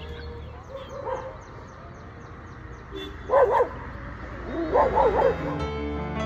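A dog barks once about three seconds in, then gives a quick run of several barks a second later, over faint bird chirps. Soft background music comes in near the end.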